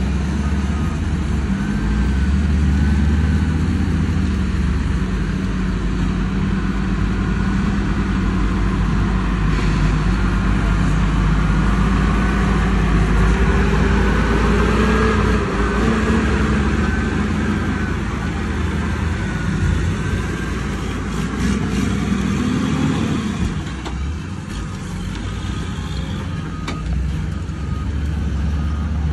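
Heavy diesel engine of a loaded tri-axle dump truck pulling away and driving on a dirt haul road, its note rising and falling as it gathers speed. About three-quarters of the way through, the engine revs up and then drops off suddenly.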